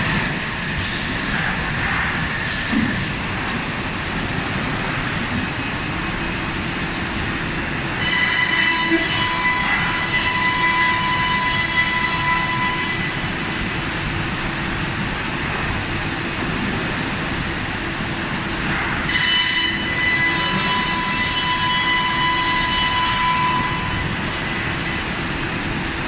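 Biesse Rover 24 CNC machining centre running, a steady mechanical noise. A high spindle whine comes in about eight seconds in for some five seconds, and again near the twenty-second mark.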